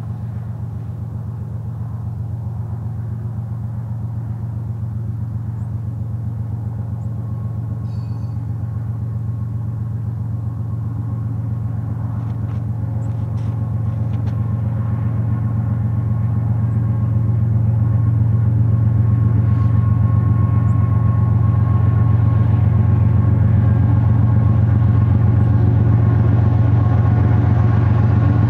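A long string of BNSF diesel locomotives running light (a power move, no cars) approaching: a steady low engine drone with a ladder of higher engine tones above it, growing louder over roughly the first two-thirds and then holding.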